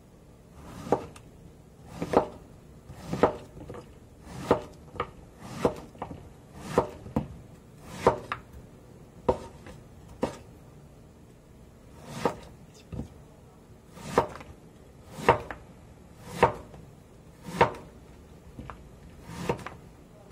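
Cleaver slicing a peeled green gourd on a wooden cutting board: steady chops about one a second, each stroke ending in a knock of the blade on the board, with a short pause about eleven seconds in.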